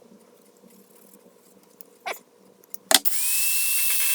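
A couple of clicks, then an angle grinder fitted with a flap disc switched on about three seconds in. Its whine rises quickly as it spins up and then runs steady.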